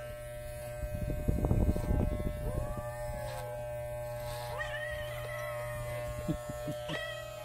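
Wahl electric clippers, run without a guard comb, humming steadily while a calico cat meows twice in long cries that rise and fall in pitch. There is a louder rough rustling about one to two seconds in.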